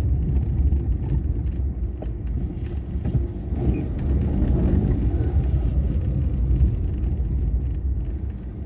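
Low rumble of a car's engine and tyres heard from inside the cabin as it drives and slows to a stop at a traffic light, getting quieter near the end.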